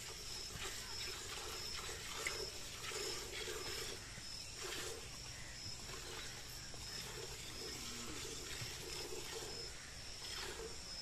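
Jets of milk squirting into a steel pail as a cow is milked by hand, in a steady rhythm of short squirts.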